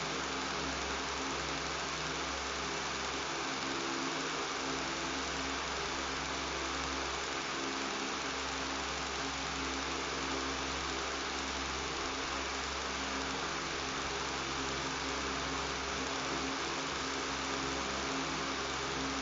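Electric fan running steadily: a constant motor buzz with several steady hum tones under an even hiss of rushing air.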